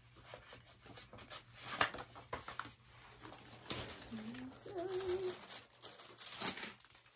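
Paper rustling and crinkling as a paper booklet and wrapping paper are handled and unfolded, in irregular bursts of crackle. About four seconds in there is a short hummed voice sound.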